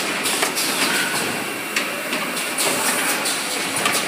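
A4 copy-paper ream wrapping machine running, a continuous mechanical clatter broken by short hissy bursts every half second to a second.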